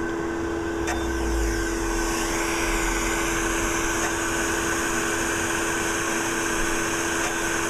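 Skin-resurfacing laser equipment running in operate mode: a steady machine hum with two low, constant tones under an even hiss of moving air.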